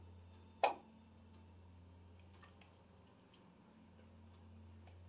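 Computer mouse clicking: one sharp click a little over half a second in, then a few faint clicks, over a low steady hum.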